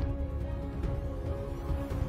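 Background music: held chords over a low bass.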